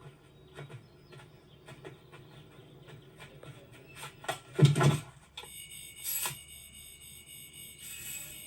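Animated-film sound effects: light clicks and taps, a loud thump about halfway through, then a high steady electronic tone like a toy's alarm or beeper, sounding twice.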